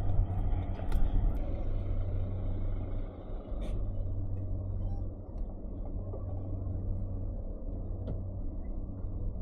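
A 125cc motor scooter on the move: a steady low engine and wind rumble, with a few sharp clicks, easing slightly a few seconds in.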